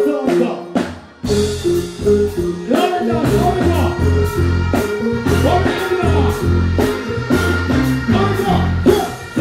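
Live band playing through a stage PA: a heavy stepping bass line with drum kit strikes and keyboard, kicking in fully about a second in after a few opening hits.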